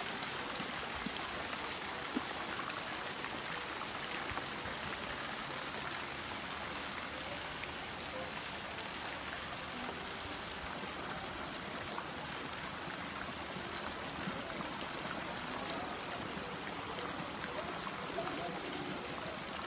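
Steady splashing and pattering of water falling onto a swimming pool's surface from spray jets, mixed with a swimmer's backstroke splashes.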